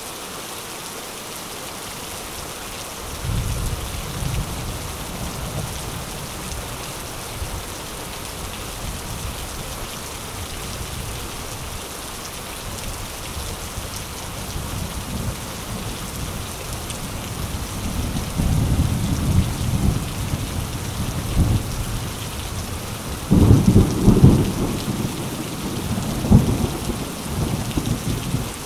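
Thunderstorm: steady rain with rolling thunder. Low rumbles start a few seconds in, grow through the second half, and the loudest peal comes a few seconds before the end.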